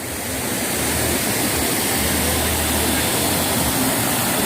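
Rushing water of a mountain valley stream, a steady hiss with a low rumble underneath, fading up over the first second and then holding level.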